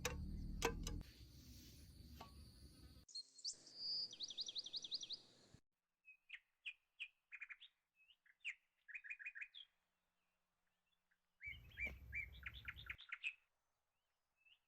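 Wild birds chirping in short quick series of high notes, in several snippets that start and stop abruptly. A low rumble with a few sharp clicks comes in the first few seconds and again briefly near the end.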